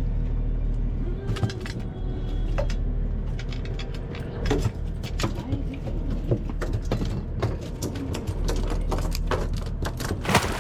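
A boat's engine running steadily with a low hum, under frequent small clinks and rattles, with a louder rattling burst near the end.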